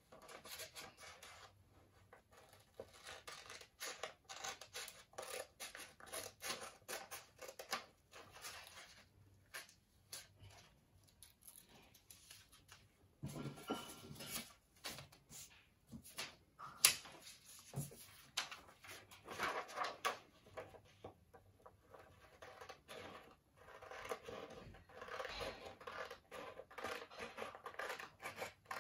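Scissors snipping through sheets of paper in runs of short cuts, with a few brief pauses. A single sharp tap comes about two-thirds of the way in.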